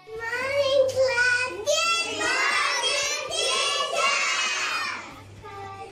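A young child's high voice singing out words for about five seconds, then dropping away near the end.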